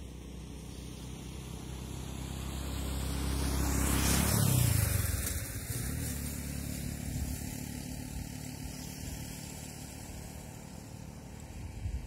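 A motor vehicle driving past: its engine grows louder, peaks about four and a half seconds in with a drop in pitch, then fades away.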